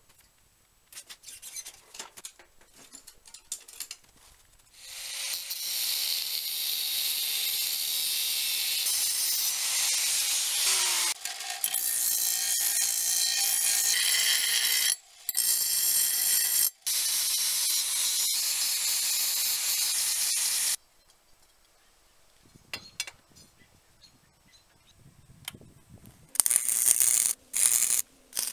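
A bicycle chain and freewheel sprocket clicking as they are turned by hand. Then a bench grinder grinding a steel flat bar, a steady high hiss for about fifteen seconds, broken off briefly twice. Near the end come short crackling bursts of electric welding.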